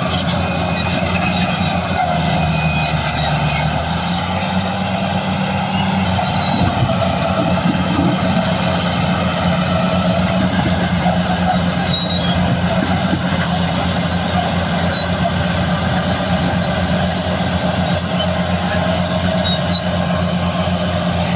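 Heavy diesel engine of a BEML BD355 crawler bulldozer running steadily at a constant pitch.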